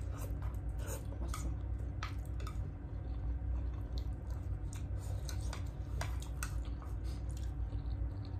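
Close-up eating sounds: chewing with scattered small clicks of cutlery on a plate, over a low steady hum.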